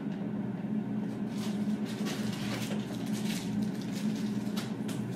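A steady low hum from a running kitchen appliance, with faint light knocks and rustles of food being moved about in an open refrigerator.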